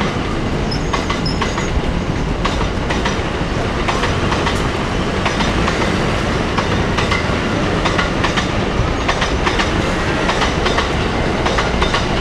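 A train running past close by: a loud, steady rumble with many sharp clicks scattered through it.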